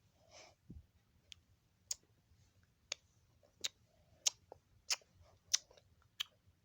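A series of faint, sharp clicks, about one every two-thirds of a second, falling into a steady beat in the second half.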